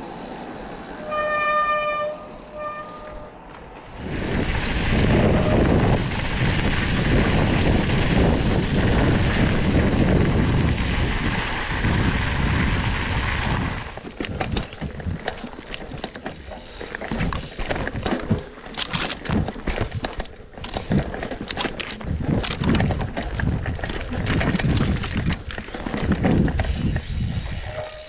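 A train horn sounds in two short toots, then a train passes under the bridge with a loud, steady rush that lasts about ten seconds. After that, a mountain bike rattles and clicks over rough forest ground.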